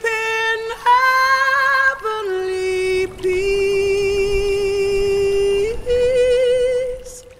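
Music: a high solo voice singing slow, long held notes with vibrato, fading out near the end.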